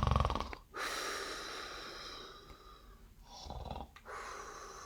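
A person imitating a bear's snoring: a short rasping snore on the in-breath followed by a long hissing breath out, done twice.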